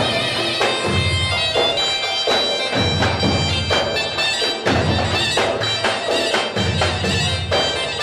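Turkish folk dance music: a shrill, reedy wind melody over heavy, steady strokes of a large bass drum, as played by a davul-and-zurna band.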